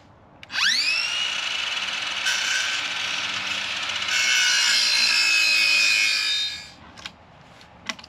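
An electric power tool working wood: its motor whines up to speed about half a second in, runs under load and gets louder about four seconds in, then winds down near seven seconds.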